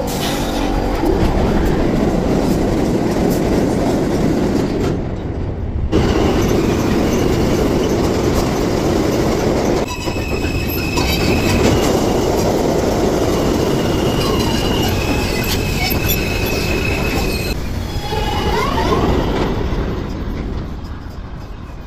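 New York City subway trains running through an underground station: a steady rumble and rail clatter, broken by a few sudden cuts. Stretches of high-pitched wheel squeal come in the middle.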